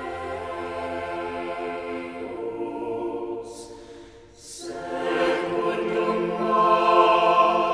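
Choir music with long, held 'aah' chords. It fades briefly about four seconds in, with two short hisses, then swells back.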